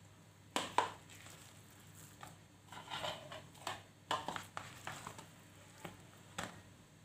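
Hand and plastic spoon scooping grated cassava mixed with grated coconut out of a plastic bowl: soft scrapes and a few light knocks against the plastic, in short irregular bursts.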